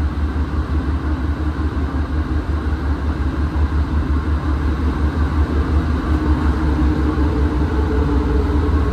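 Steady low rumble inside an Alstom NS-93 rubber-tyred metro car as the train runs, with a faint steady hum coming in about six seconds in.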